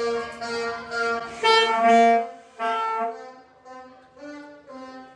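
Alto saxophone played by a young band student: a short series of held notes, about two a second, stepping up and down in pitch, the last few notes quieter.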